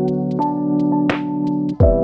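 Background electronic music: sustained synthesizer chords with a percussion hit about a second in and a new chord with a falling bass note near the end.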